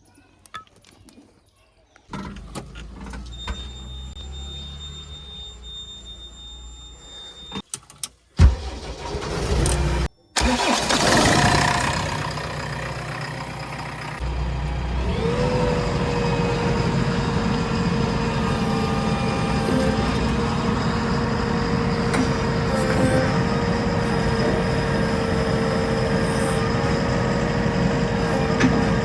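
JCB 3DX backhoe loader's four-cylinder diesel engine. It comes up loudly about a third of the way in, then runs steadily with a high whining tone from about halfway on.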